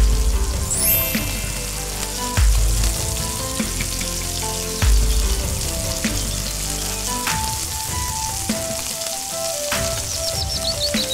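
Oil sizzling in a tiny clay pot as a bay leaf and whole spices fry in it, stirred with a small spoon. Background music plays over it.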